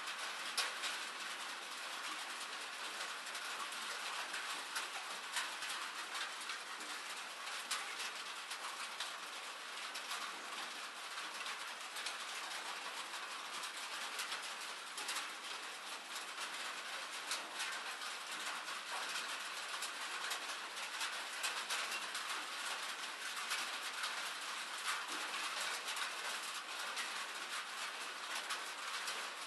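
Steady rain pattering, a constant hiss thick with small droplet ticks.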